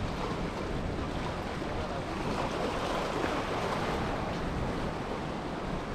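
Sea waves washing against the rocks with wind on the microphone, one wash swelling louder about two to four seconds in.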